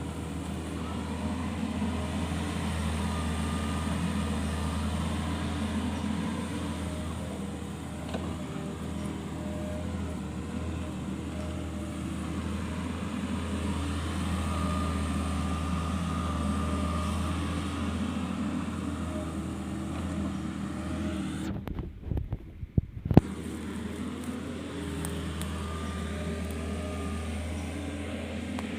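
Kobelco SK50P mini excavator's diesel engine running steadily under work, with a higher hydraulic whine rising and fading several times. About 22 seconds in the sound briefly cuts out and ends in a sharp click.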